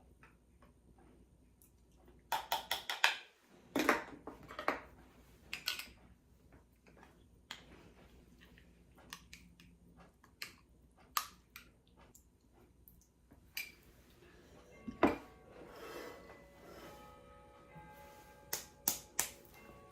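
Kitchen handling sounds: scattered clicks, clinks and knocks of utensils and containers. A quick run of them comes about two seconds in and one sharp knock about three-quarters through. Near the end a ringing, bell-like tone sounds.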